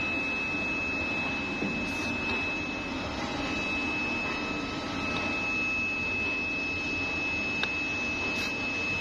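Workshop machinery running steadily: a constant high-pitched whine over a low mechanical hum.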